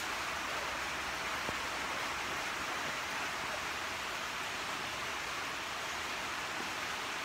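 Steady rain on a corrugated-metal shed, heard from inside as an even hiss.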